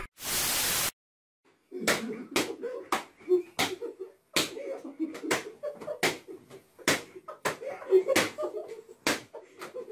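A short burst of steady hiss, then after a pause a fast series of sharp slaps, about two a second, as hands strike motorcycle helmets, with voices and laughter between the hits.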